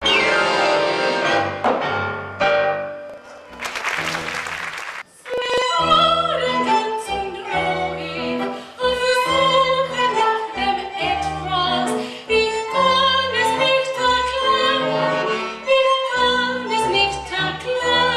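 Live tango music from a small ensemble of piano, double bass and bowed strings, with a woman singing over a steady, pulsing bass line. A brief burst of hiss about four seconds in.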